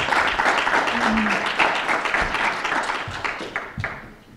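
A small audience applauding, many hands clapping at once; the clapping thins out and dies away near the end.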